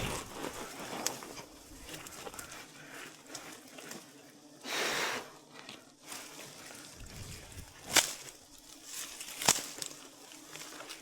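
A climber working his way down a tree through dense branches: leaves and twigs rustling, a short louder rustle about five seconds in, and a few sharp cracks of branches, the loudest about nine and a half seconds in.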